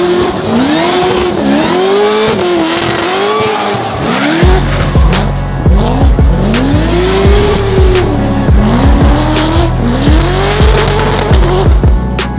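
BMW E92 drift car's engine revving up and down in repeated swells as it slides sideways, tyres squealing. From about four seconds in, music with a heavy beat plays over it.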